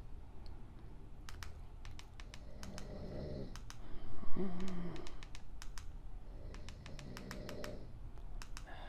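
A person snoring, three rasping snores a few seconds apart, the loudest about four seconds in. Quick runs of button clicks come in between.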